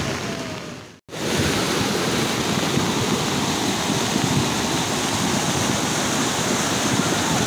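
Muddy flash-flood torrent rushing past close by, a steady heavy roar of water swollen by storm rain. The sound briefly fades out and cuts back in about a second in.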